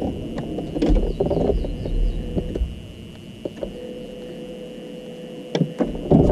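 Knocks and low rumble from a small fishing boat, over a steady high-pitched whine; it goes quieter about halfway through, then a sharp knock near the end.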